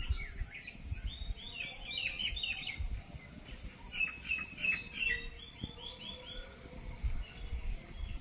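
A bird calling: two quick runs of short, repeated falling chirps, the first about a second in and the second about four seconds in. Irregular low thumps lie underneath.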